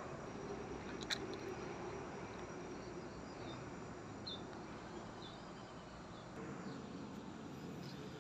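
Outdoor ambience: insects chirping steadily over a low background hum, with a few short high chirps and one sharp click about a second in.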